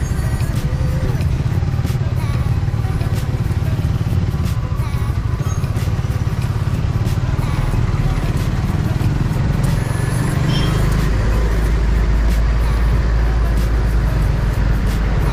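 Suzuki Raider R150 Fi's single-cylinder four-stroke engine running as the motorcycle rides through slow traffic. A deep low rumble of wind on the microphone grows much stronger about ten seconds in as the road opens up.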